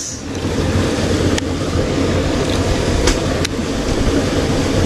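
Boat motor running steadily, with a few sharp clicks over it.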